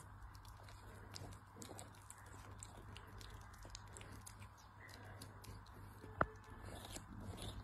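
Kitten chewing and biting at the skin of a bitter melon: faint scattered crunching ticks, with one sharp click about six seconds in.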